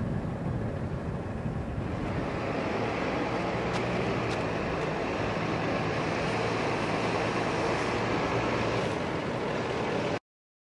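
Steady outdoor rushing noise with a faint low hum under it, cutting off abruptly near the end.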